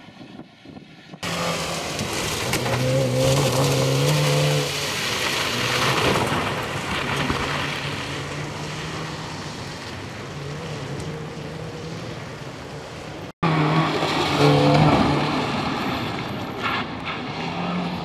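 Fiat Punto rally car's engine revving hard on a stage run, its note rising and falling as the driver works the throttle and gears. The sound starts abruptly about a second in and drops out briefly about three-quarters of the way through.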